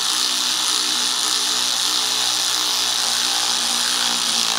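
Handheld cordless power tool running steadily at constant speed, driving down a bolt on a vacuum pump's mounting bracket.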